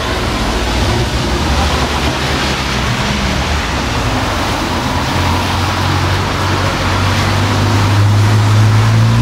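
Street traffic noise, with a passing car's low engine hum growing louder through the second half.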